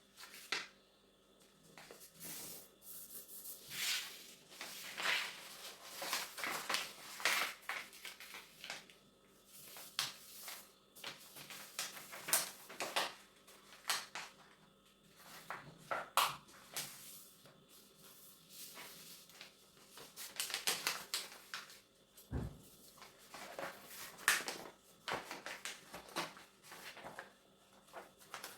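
A large sheet of paper being folded and creased by hand: irregular rustling and crisp swishes as the folds are pressed, with a single low knock about two-thirds of the way through.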